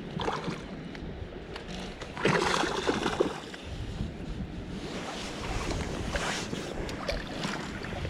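Water and wind noise on a small fishing boat, with a louder rushing, crackling burst lasting about a second, starting about two seconds in, and a few light clicks.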